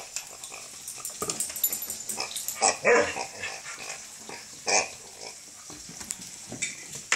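A dog chewing and mouthing a toy, with soft clicks and crackles, and making a few short grumbling sounds. The loudest comes about three seconds in.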